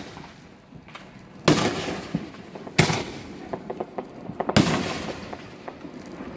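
Aerial fireworks bursting: three loud bangs about a second and a half apart, with smaller crackling pops among and after them.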